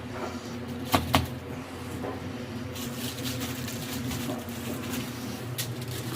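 Two sharp kitchen knocks about a second in, a fifth of a second apart, over a steady low hum, with a soft hiss through the middle.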